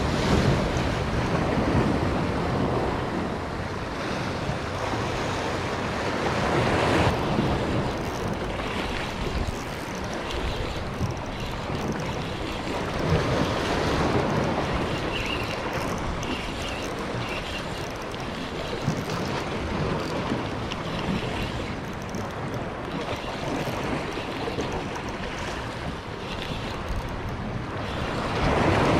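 Sea waves washing, with wind gusting over the microphone; the sound swells and eases over several seconds.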